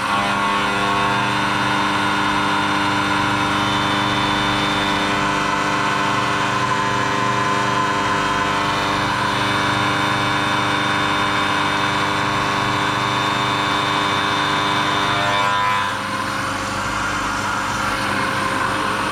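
Milling machine spindle running with a steady whine while the cutter takes a light dry skim pass across an aluminium face; the rougher cutting noise stops about three seconds before the end as the spindle keeps turning.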